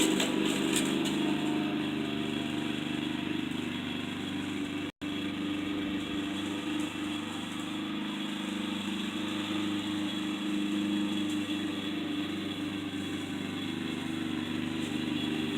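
Briggs & Stratton 4.5 horsepower single-cylinder lawn mower engine running steadily through an upright exhaust stack while cutting grass, with a momentary dropout about five seconds in.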